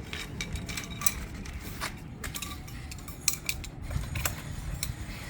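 Pressure washer wand extensions being handled and fitted together: a series of scattered clicks and knocks over a low rumble.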